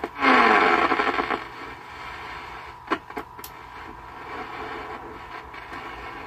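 Radio static from a 1980s AM/FM radio and record player combo: a loud burst of hiss about a second long at the start, then quieter steady hiss with a few sharp clicks near the middle, as the radio is being tried out.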